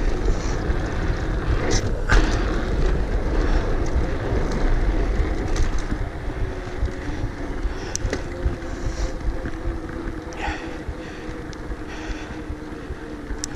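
Mountain bike ride heard on a GoPro's microphone: wind buffeting and rolling tyre noise, with occasional sharp clicks and rattles from the bike. The sound eases off a little about halfway through.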